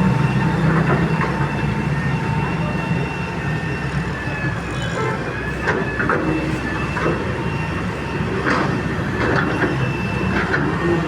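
Heavy-duty excavator at work: its diesel engine runs steadily under a thin, steady high-pitched whine, with scattered metallic clanks from about four seconds in.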